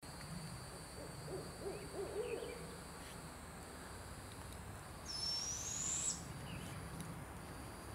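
An adult barred owl gives a short run of low hoots about a second in, ending in a drawn-out note. About five seconds in, the barred owlet gives one thin, high begging call that rises steadily in pitch for about a second.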